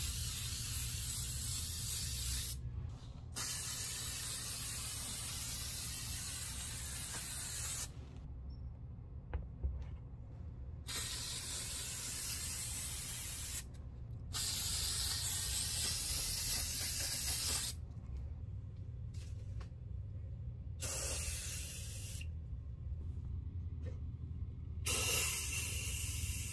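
Aerosol spray can hissing in six bursts, most of them several seconds long with short pauses between, as leather-care waterproofing spray is applied to white leather sneakers. A low steady hum runs underneath.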